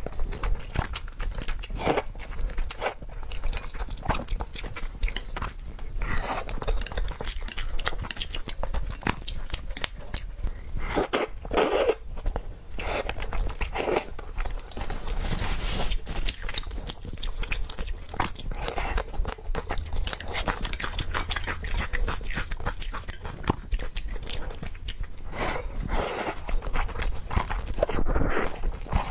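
Close-miked slurping and chewing of noodles picked up with chopsticks, long sucking slurps between wet chewing, mouthful after mouthful. Near the end a couple of mouthfuls brush against the microphone, giving the sound an odd rubbing edge.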